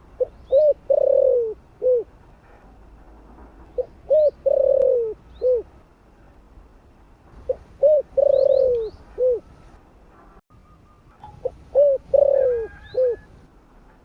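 Spotted dove cooing: four phrases about four seconds apart, each a couple of quick notes, one longer drawn-out coo and a short final note. Faint high chirps from small birds come between the phrases.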